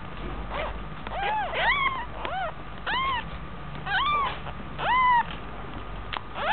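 Young kittens mewing repeatedly: short, high calls that rise and fall in pitch, roughly one a second, two sometimes overlapping.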